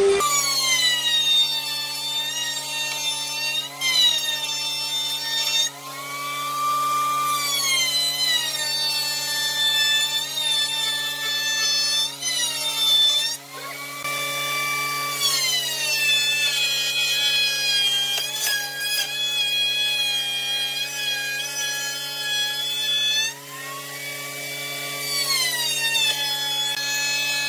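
Wood router mounted under a router table, running continuously at high speed while a curved wooden piece is fed against its bit. Its whine shifts in pitch several times, about 4, 6 to 8, 12 to 15 and 23 to 26 seconds in.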